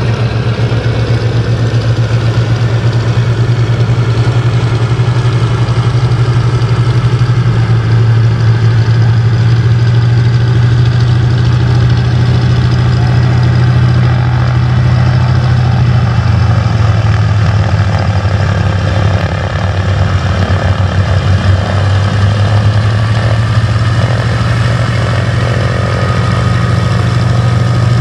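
Piston engine of an Auster AOP.6 light aircraft, a de Havilland Gipsy Major, running at low power with a rapid even beat as the plane lands and taxis past close by. The note shifts a little about eight seconds in and again between about sixteen and twenty-two seconds.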